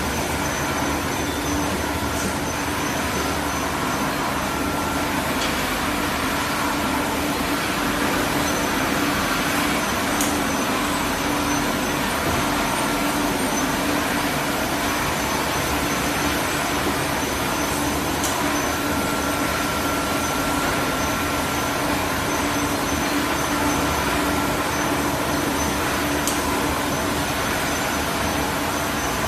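Automatic glass bottle washing machine running: a steady mechanical din with a constant hum and a few faint clicks.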